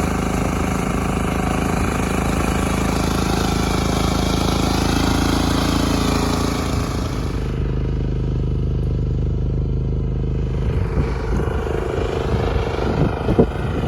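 Lifan C192F single-cylinder engine of a homemade mini tractor running after a shaft key repair, its pitch rising briefly around five seconds in. The high hiss drops away at about seven and a half seconds, and uneven knocks and rattles come in over the last few seconds.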